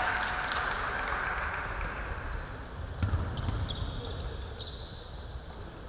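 Basketball being dribbled on a hardwood gym floor, bouncing with low thumps, and sneakers squeaking in short high chirps as players move and cut on the court.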